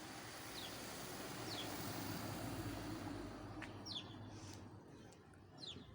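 A small bird chirping, with about four short, falling high chirps spread out over steady outdoor background noise.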